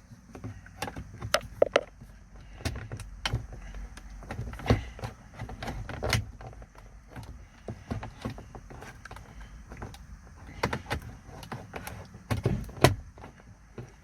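Plastic pry tool scraping and clicking against a BMW's dashboard trim as it is levered out around the push start button, with irregular sharp clicks and knocks.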